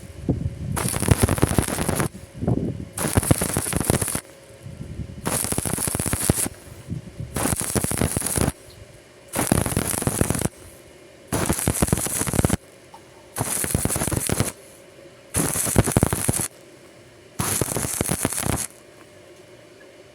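Stick (arc) welding: the electrode's arc crackles and sputters in about nine short runs of roughly a second each, struck about every two seconds, as in stitch or tack welding. The last run stops a little before the end.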